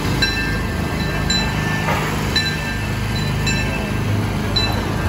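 Steam locomotive bell of the Disneyland Railroad's C.K. Holliday ringing about once a second, over a steady low rumble.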